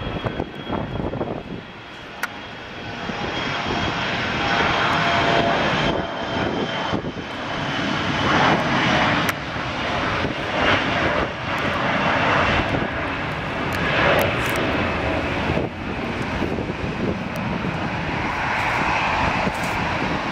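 Airliner's engines passing close by, the noise building over the first few seconds and then staying loud as a steady rush.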